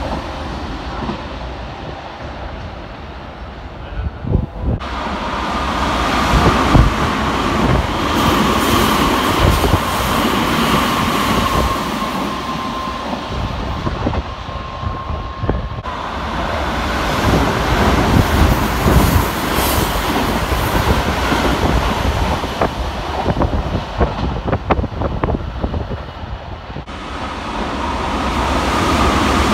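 Electric commuter trains running through a station platform without stopping, at about 110–120 km/h: the rush of wheels on rail swells as each train nears, with rapid clatter over rail joints. The sound changes abruptly three times, at cuts between passing trains.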